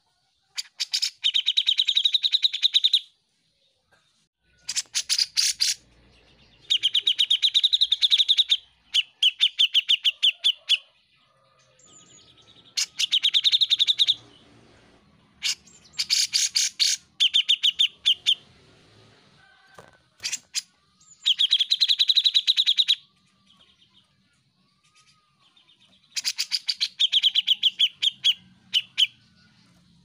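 Caged cucak jenggot (grey-cheeked bulbul) singing loudly and continuously: phrase after phrase of rapid repeated notes, each phrase lasting a second or two, with short pauses between them.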